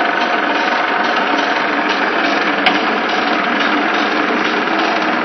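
FR900 continuous band sealer running, its motor-driven sealing bands and conveyor giving a steady mechanical whir, with a single click about halfway through.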